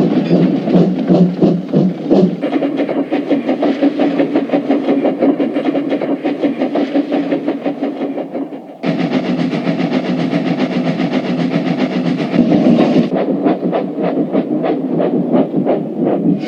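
Train running along the track with a fast, rhythmic clatter. The sound changes abruptly about two seconds in, about nine seconds in and about thirteen seconds in, as separate clips are spliced together.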